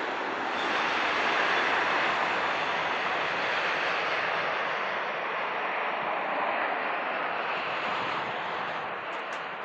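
Renfe Avlo Series 112 high-speed train going past at speed: a steady rush of wheel and air noise that swells about a second in and then slowly fades as it moves away.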